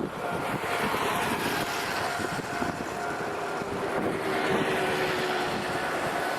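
A Nankai Electric Railway train passing over a level crossing: a steady rush of wheel and running noise, with a low whine that falls slightly in pitch around the middle. The crossing's warning alarm keeps ringing as a steady two-tone sound.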